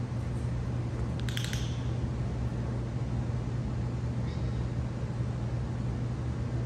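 Steady low mechanical hum, with a few light clicks about a second and a half in.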